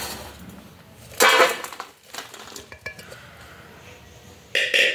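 Stainless steel kitchen vessels clattering as freshly boiled pigeon pea pods are tipped out of the pressure cooker pot into a steel colander: a loud clatter about a second in and another metallic clank near the end.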